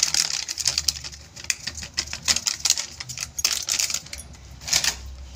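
Plastic flour packet crinkling and crackling as it is held and shaken to empty the maida into a steel bowl, the crackle coming on and off.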